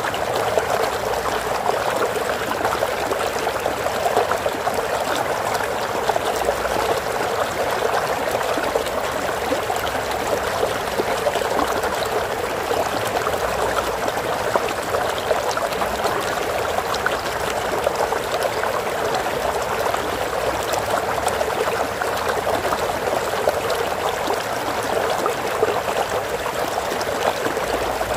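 Flowing stream water, a steady babbling trickle over rocks.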